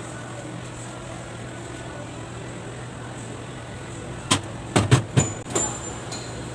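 A quick series of sharp metallic clicks and clinks, five or six within about two seconds starting about four seconds in, the last ones ringing briefly, as metal pieces are handled and knocked together on a workbench. A steady low hum runs underneath.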